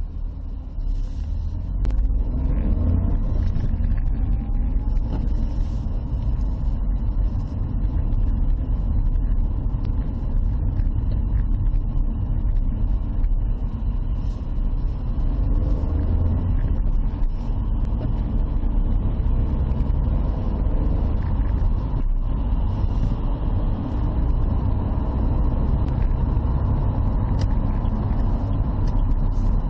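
Dacia Sandero driving, heard from inside the cabin: a steady low engine and tyre rumble. It gets louder about two seconds in as the car pulls away, and the engine note rises faintly as it accelerates.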